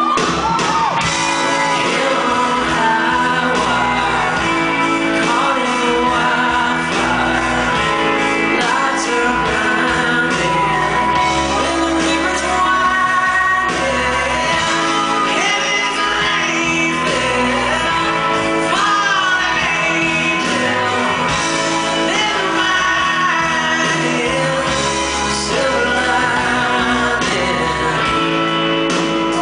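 Rock band playing live in a large hall: a male lead singer over acoustic and electric guitars, keyboard and drums, heard from the audience.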